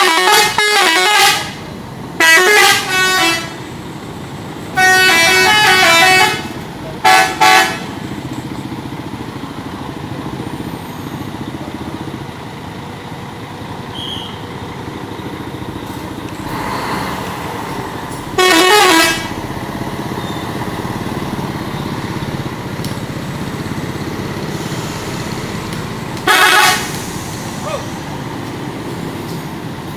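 Indonesian bus "telolet" horn, a multi-tone musical horn, playing short melodic bursts: four in quick succession in the first eight seconds, another about two-thirds of the way through, and a short one near the end. Between the bursts a steady engine and traffic rumble continues.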